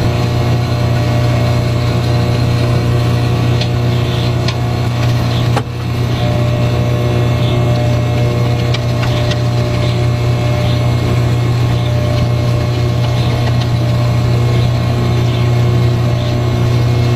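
Microwave oven running with a steady, loud hum, heating a bar of Dove soap. The hum dips briefly about five and a half seconds in.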